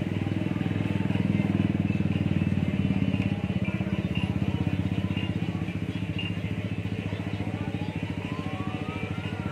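A motorcycle engine running close by with a fast, even pulse, louder for about two seconds near the start and then steady. A siren rises and falls near the end.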